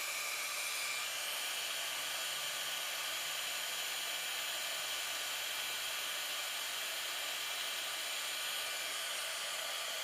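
Heat gun blowing steadily: an even hiss of hot air, heating the silver-plated settings so they melt the low-temperature solder.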